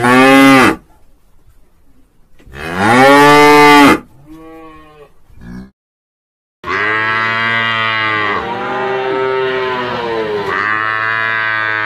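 Cattle mooing: two loud moos, each rising then falling in pitch, and a fainter one after them. After a short silence comes a long lowing call of about six seconds in three drawn-out parts.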